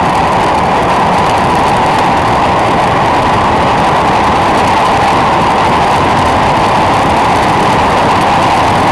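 Loud, steady rush of wind on a bike-mounted camera's microphone during a fast road-bike descent, with no change in level.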